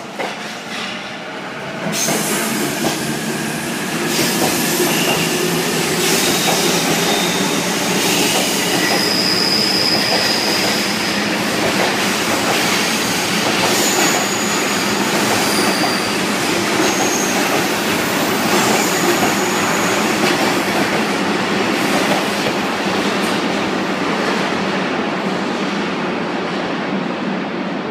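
An E259-series Narita Express train pulling out along an underground station platform, with a steady rolling noise from its wheels and running gear. High wheel squeals come and go through the middle, and the noise eases a little near the end as the train clears the platform.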